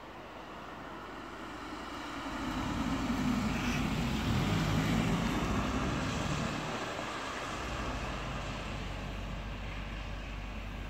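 Emergency doctor's car (NEF) driving past on a wet road: engine and tyre noise swell over the first few seconds, peak, then slowly fade as it moves away.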